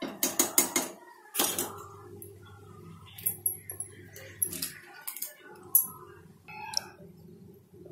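Kitchen utensils clinking and clattering: a quick run of sharp metallic clinks at first, then single clinks every second or so, over a low steady hum.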